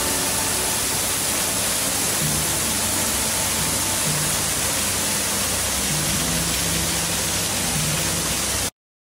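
Garden waterfall pouring over rocks into a pond: a steady rushing hiss of falling water, with a few faint low music notes underneath. It cuts off suddenly near the end.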